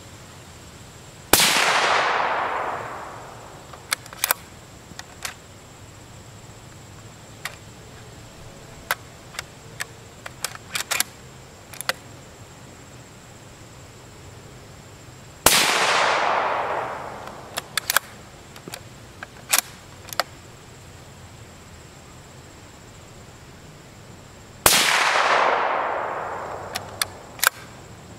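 Suppressed .308 bolt-action rifle, a CZ 557 with a Q Half Nelson titanium suppressor, firing three single shots about fourteen and nine seconds apart, each a sharp report that trails off over a second or so. Between shots come short metallic clicks as the bolt is worked.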